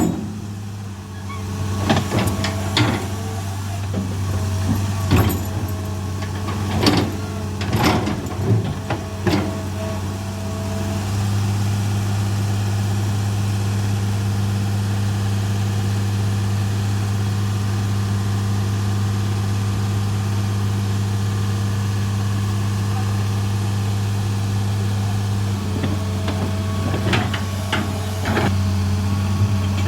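Excavator engine idling steadily, with a series of sharp knocks over the first ten seconds and again near the end.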